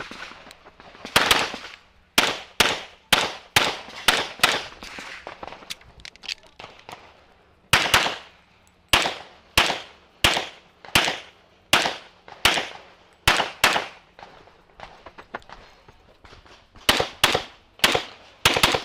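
Competition pistol, a Metrillo "The Master" Standard Division gun, firing a practical-shooting stage: sharp shots in quick pairs about half a second apart, with a pause of a few seconds near the middle before the shooting resumes.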